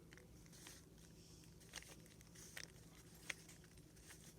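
Faint clicks of a 3x3 Rubik's cube's layers being turned by hand, a few scattered clicks over a low room hum, the sharpest a little over three seconds in.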